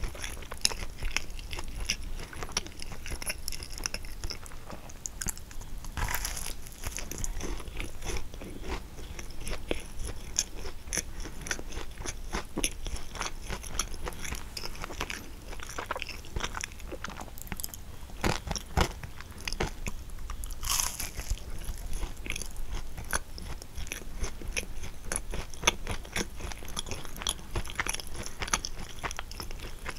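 Biting and chewing a kouign-amann pastry: its crisp crust crunches and crackles in many quick, irregular clicks between softer chewing.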